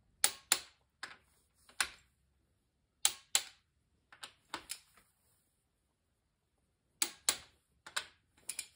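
Torque wrench clicking as connecting-rod bolts are torqued to 50 ft-lb: sharp metallic clicks, mostly in pairs about a third of a second apart, several times over, with a pause of about two seconds in the middle.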